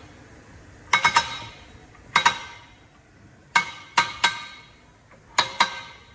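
Metal parts of a heavy-truck disc brake caliper and tools clinking together while being handled: sharp clinks in groups of one to three, each with a short bright ring, about five groups in all.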